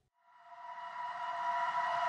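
Silence, then about half a second in a sustained eerie drone of several held tones fades in and slowly grows louder: the start of a dark background music cue.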